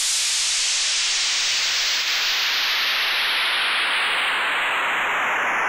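Synthesized white-noise sweep from Native Instruments Massive, its noise colour automated so the hiss slides steadily downward and darkens, with a slightly bit-crushed, phasing edge.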